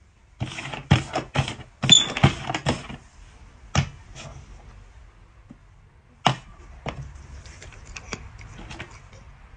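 Hard cups knocking and clattering on a tabletop board as they are moved around. A quick run of knocks comes in the first three seconds, then single sharp knocks about 4 and 6 seconds in, and a few lighter clicks near the end.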